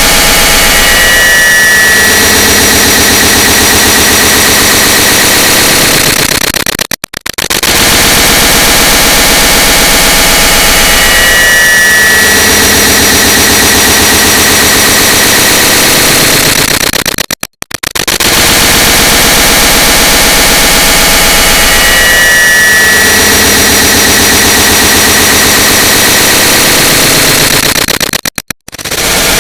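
A click sound stacked and multiplied into a loud, harsh wall of noise with a buzzing hum through it. It repeats in a cycle of about ten seconds, dropping out briefly about seven, seventeen and twenty-eight seconds in.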